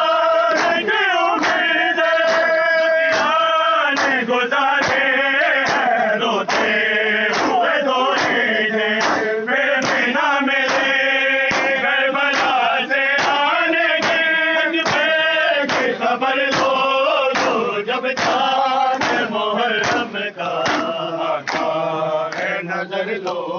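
Men chanting a Muharram nauha together, with rhythmic matam chest-beating in time, about two beats a second.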